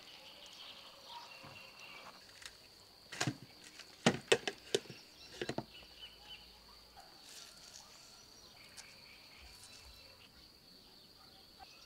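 Steady high insect chirring, with a short cluster of sharp knocks a few seconds in.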